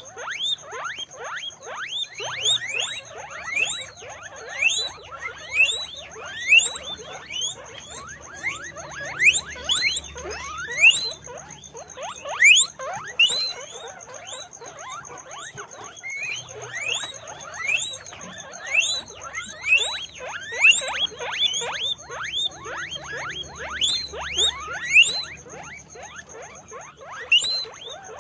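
Guinea pigs squeaking: many short squeaks falling in pitch, several a second and often overlapping, in louder bursts with quieter stretches between. A thin steady high tone runs behind them.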